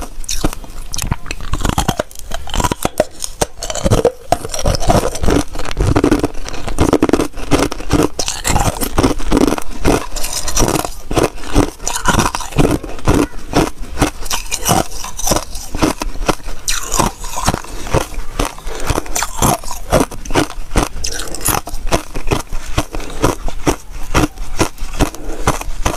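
Thin discs of ice bitten and chewed close to a clip-on microphone: a dense run of crisp cracks and crunches, with scraping as ice is pried from the tray near the end.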